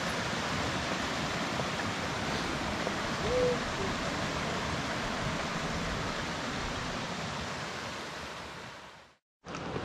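Steady rush of a flowing mountain stream, with one brief whistle-like note about three seconds in. The water sound fades away near the end.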